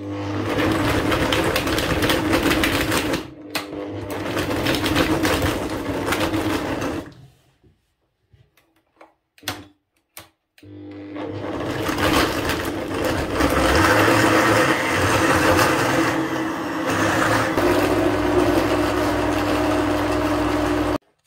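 Bosch kitchen machine's blender jug running loud, blending raw chicken pieces and ice into a meatball paste. It runs for about seven seconds, stops for a few seconds, then runs again for about ten seconds and cuts off suddenly near the end.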